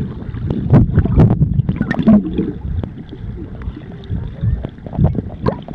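Muffled underwater sound picked up by a submerged camera: water swishing and sloshing as swimmers move close by, with frequent sharp clicks and knocks.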